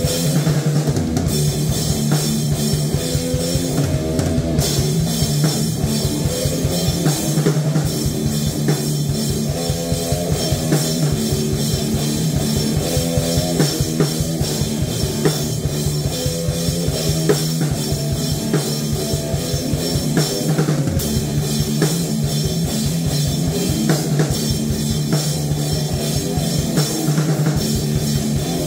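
Heavy metal jam: a drum kit played with rapid, steady hits under electric guitar, with a sustained low note and moving riff lines above it.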